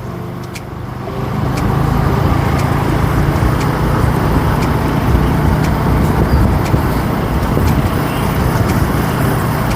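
Yamaha R15 motorcycle's single-cylinder engine running steadily while riding, with wind and road noise; the level climbs about a second in.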